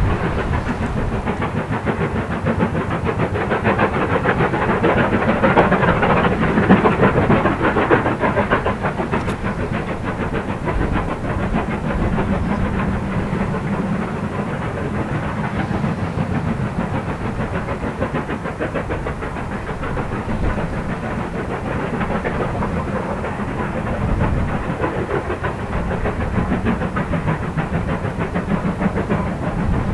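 Steam locomotives working hard at the head of a passenger train, their exhaust beats coming fast and overlapping, with the rumble of the train. The sound is a little louder a few seconds in.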